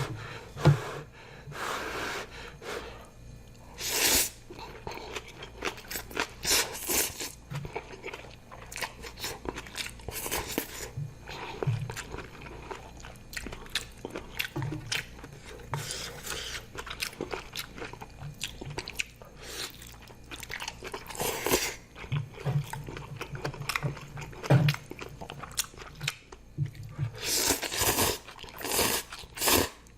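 Close-miked eating sounds: chewing and crunching on kimchi and zucchini noodles in spicy ramen, in irregular bursts, some louder than others.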